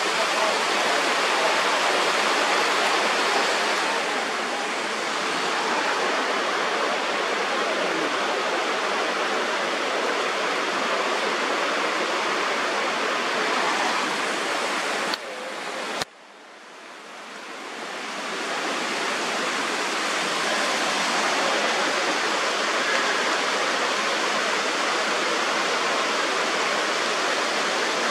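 Mountain river rushing over rocks: a steady, even rush of water that dips sharply about sixteen seconds in and swells back up over a few seconds.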